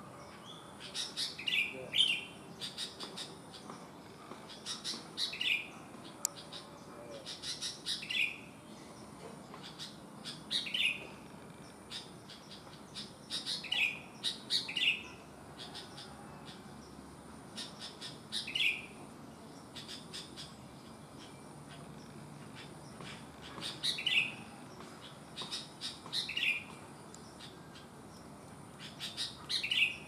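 Sooty-headed bulbul singing: about nine short phrases of a few quick notes, each ending in a falling note, repeated every few seconds.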